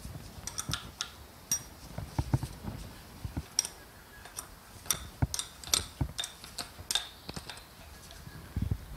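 Combination spanner clicking and clinking against the bolts of an SU carburettor's intake elbow as they are turned and tightened: a string of irregular, sharp metal ticks.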